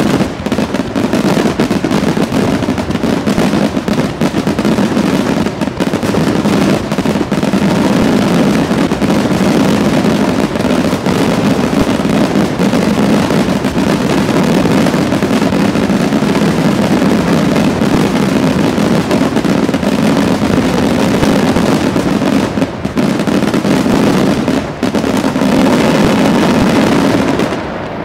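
Aerial fireworks display in a dense, continuous barrage: shells bursting close together with crackle, loud throughout, dying away just before the end.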